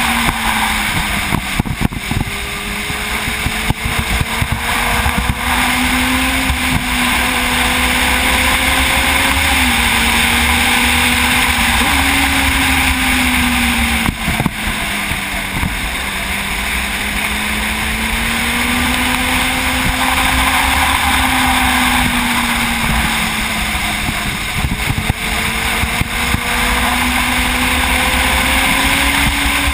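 Sportbike engine heard from the rider's seat while cruising, its pitch climbing slowly under throttle and dropping back several times, over a steady rush of wind and road noise.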